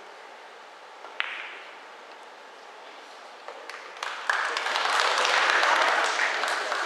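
A pool shot: a sharp click of cue and balls about a second in. Then audience applause starts at about four seconds and swells, fading near the end.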